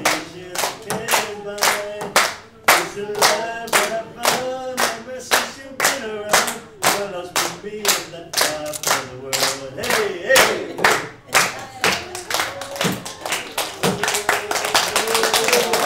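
A small group clapping hands together on a steady beat, keeping time to a sung melody. Near the end the clapping grows faster and looser, like applause.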